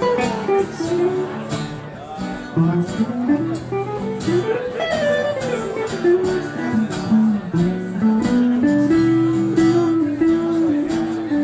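Instrumental break in a blues song: a lead guitar plays a solo line with bent, gliding notes over a strummed acoustic guitar accompaniment.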